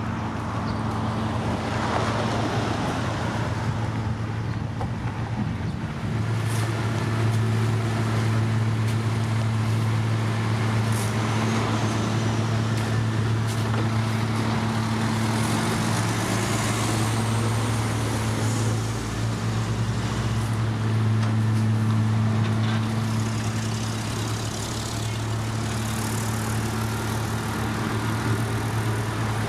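Heavy diesel construction machinery running steadily with a low, constant engine hum, a little louder from about six seconds in.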